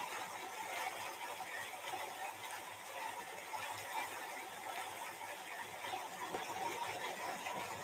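Faint, steady background noise of a room, with no distinct events.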